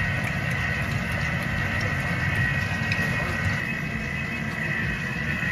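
A motor or fan running steadily, giving a constant low rumble with an even hum above it.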